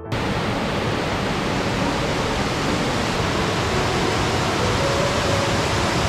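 Mountain stream rushing over rocks in small cascades and chutes: a steady, loud rush of white water.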